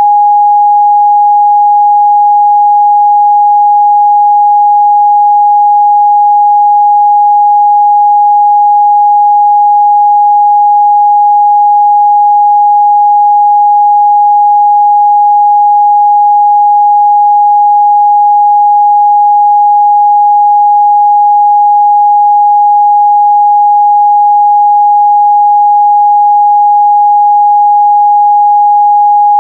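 A steady, loud 826 Hz pure sine test tone, one unchanging pitch with no other sound.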